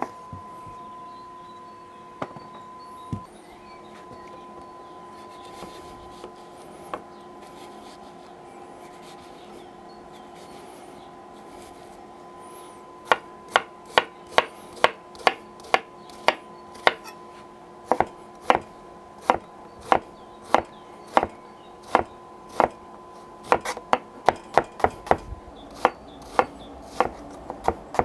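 Chef's knife dicing onions on a bamboo cutting board: a few scattered knocks at first, then from about halfway a steady run of sharp knife strikes on the wood, about two a second.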